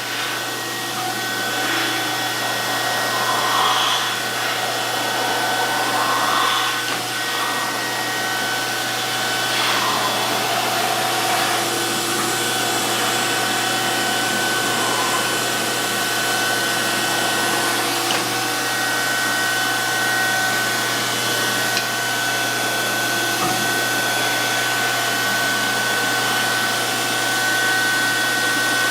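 DoAll surface grinder running: a steady whir with a fixed whine, and soft swells of grinding hiss every few seconds, clearest in the first third.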